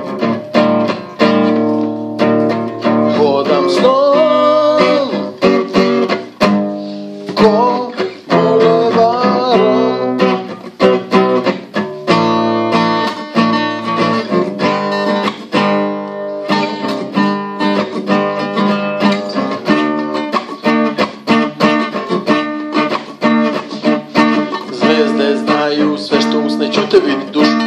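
Acoustic guitar strummed in steady chords, with a man singing over it in places.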